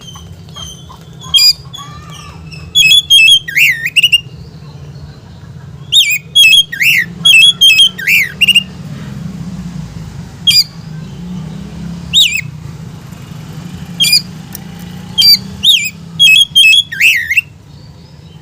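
Oriental magpie-robin (kacer) singing loud, harsh phrases of sharp chirps and whistles in quick clusters, broken by pauses of a second or two, over a steady low hum.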